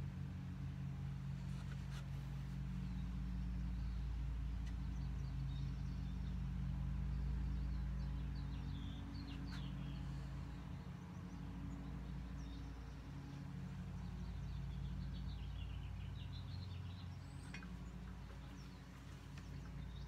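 A steady low electrical-sounding hum, with a few short bird chirps about eight to ten seconds in and again around fifteen to seventeen seconds in, and a couple of faint clicks.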